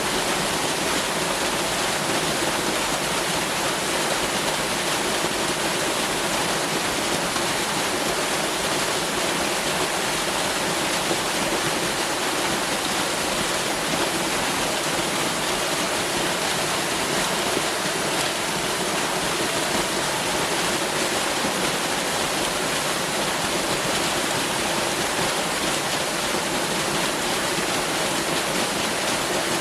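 Waterfall: water falling and rushing, a steady, even roar of white water.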